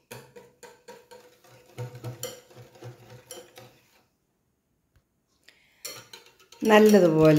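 Wire balloon whisk beating a runny egg, oil and curd cake batter in a glass bowl: fast, rapid clinking and scraping of the wires against the glass for about four seconds, then it stops.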